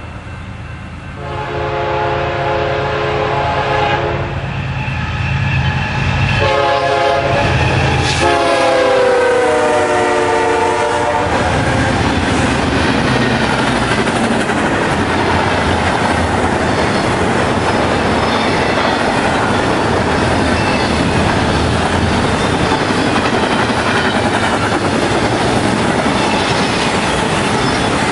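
A freight locomotive's air horn sounds in several blasts, its chord dropping in pitch as the locomotive passes about eight seconds in. Then a train of highway trailers on flatcars rolls by with a steady rumble and clickety-clack of wheels on rail joints.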